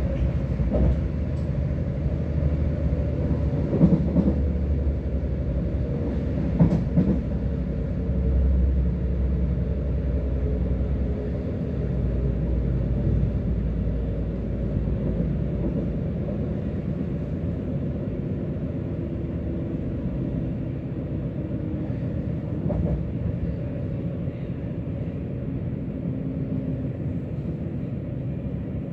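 Passenger train running at speed, heard from inside the carriage: a steady low rumble of wheels on rails, with a few sharp knocks about four and seven seconds in.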